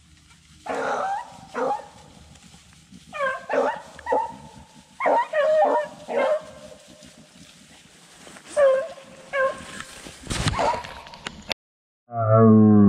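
Beagles baying on a rabbit's trail, in four bouts of drawn-out, pitched bays. A single sharp crack comes near the end.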